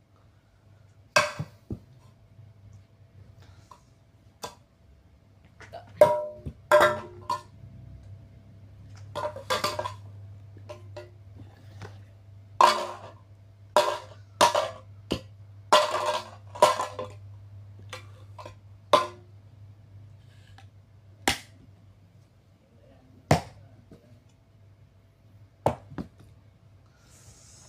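A Mr. Coffee coffee maker being smashed apart: sharp knocks and clattering blows at irregular intervals, some in quick clusters with brief pauses between, over a low steady hum.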